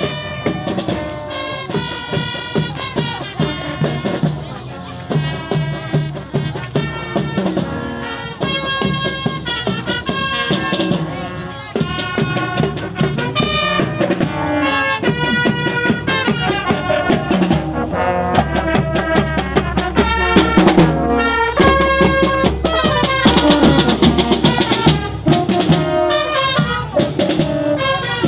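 A marching drum band playing, a brass melody over marching drums.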